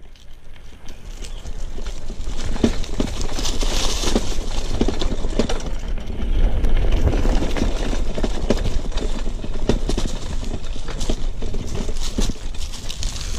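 Mountain bike rolling down a rough dirt trail covered in dry leaves: tyres crunching over leaves and stones with a constant clatter and rattle of the bike over bumps, and wind rumbling on the handlebar camera's microphone. The noise builds over the first couple of seconds after starting out of a brief silence.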